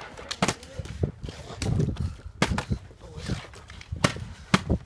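Scattered sharp knocks and taps, about ten at irregular intervals, with indistinct low voices between them.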